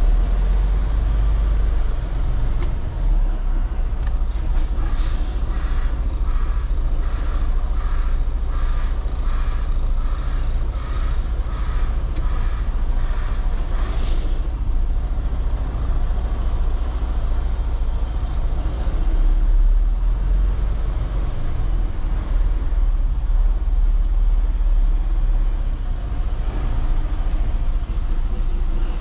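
Diesel tractor-trailer engine running at low revs while the rig backs up, with a backup alarm beeping about once a second from about four to thirteen seconds in. About fourteen seconds in comes one short, sharp hiss of air from the air brakes.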